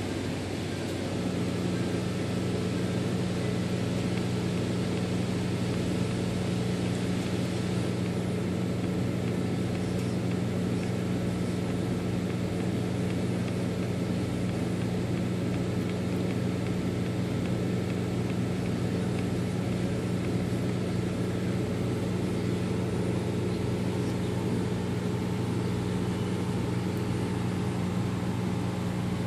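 A steady mechanical hum with a couple of held low tones, setting in about a second in and running on unchanged.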